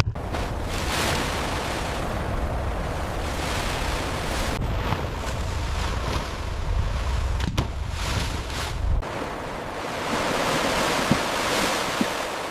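Sea waves washing and surging with wind, under a low rumble that cuts off about nine seconds in.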